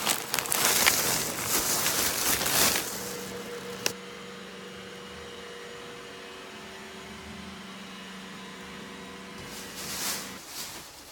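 Plastic grocery bags rustling and crinkling as they are set down, for about three seconds, with a sharp click about four seconds in. Then a steady mechanical hum, with more rustling near the end.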